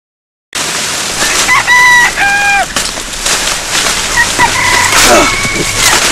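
A rooster crows once, starting about a second and a half in, and chickens cluck, over steady rustling of leaves and branches as someone pushes through dense brush.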